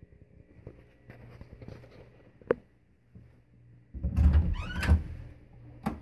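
A door being opened: a sharp click, then about a second of heavy thudding with a creaking hinge, and another click near the end.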